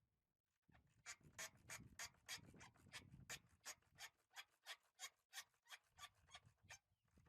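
Quick, even scraping or rubbing strokes, about three to four a second, starting about a second in and stopping shortly before the end.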